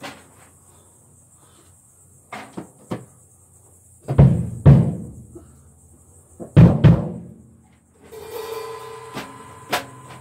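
Drum kit played in short bursts: a few light snare strokes, then two pairs of heavy hits on bass drum and snare. These are followed near the end by a ringing tone with a few more strokes over it.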